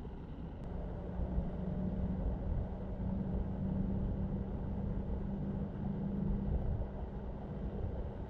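Car driving, a low road and engine rumble with a steady low hum that sets in about a second in and stops near the end.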